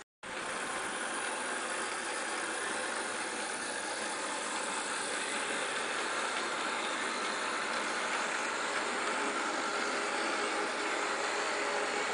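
Z-scale model freight train running on the track behind a Z-Modellbau SBB Ee 3/3 model locomotive: a steady whir of many small wheels rolling on the rails and the locomotive's small electric motor. The sound cuts in abruptly just after the start.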